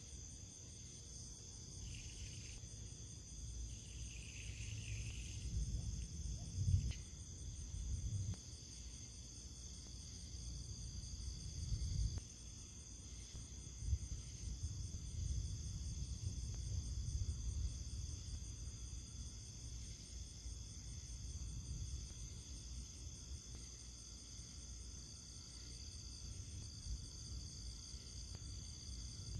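Steady high-pitched insect chorus, one voice pulsing evenly, over an uneven low rumbling noise.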